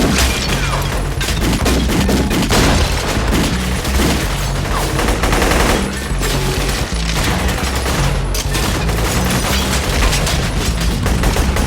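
Sustained, rapid gunfire from an action-film soundtrack, dense and continuous, over music with a pulsing bass line.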